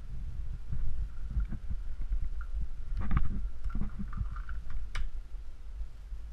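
Low rumbling movement and handling noise with scattered knocks, and a single sharp click about five seconds in.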